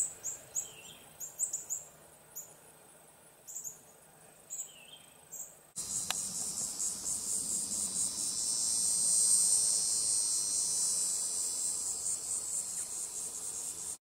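Outdoor insect sound. For the first few seconds there are scattered short, high chirps over a quiet background. About six seconds in, a sudden cut brings in a dense, high-pitched insect chorus that pulses steadily.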